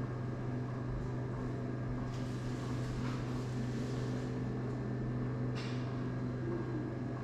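Steady low mechanical hum holding one even low tone, with a short sharp hiss about five and a half seconds in.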